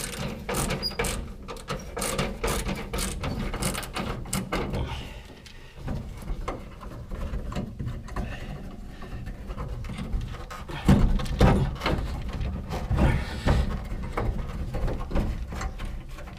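Small hand ratchet clicking rapidly as a fastener is worked loose, followed by several louder knocks and thumps of parts being handled.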